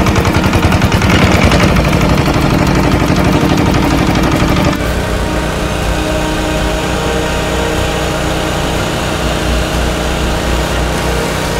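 An engine running with a fast, even pulse. About five seconds in the sound changes abruptly to the steady drone of snowmaking fan guns blowing, with several steady tones in it.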